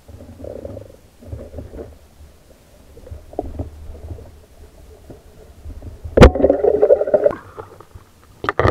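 Muffled underwater rumble of water moving over an underwater camera housing as the diver swims. About six seconds in comes a sharp knock, followed by about a second of bubbling noise, and more sharp knocks come near the end.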